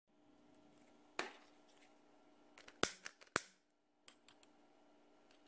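Long-necked utility lighter clicking as its trigger is pulled to light a tealight: one sharp click just over a second in, then a quick run of three clicks about three seconds in. A faint steady hum sits underneath.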